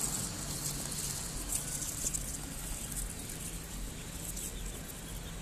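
Many ducklings in a pen peeping faintly over a steady low hum.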